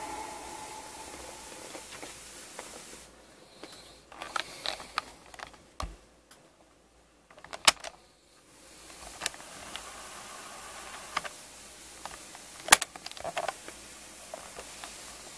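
General Electric 3-5306A portable cassette recorder's piano-key controls being pressed and released: a scatter of sharp mechanical clicks and clunks, the loudest about three-quarters of the way through. The music from the tape cuts out within the first second, and a faint steady hiss runs between the clicks.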